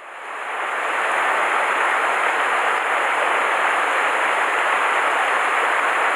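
Mountain stream rushing steadily over a small cascade into a pool. The sound fades in over the first second, then holds even.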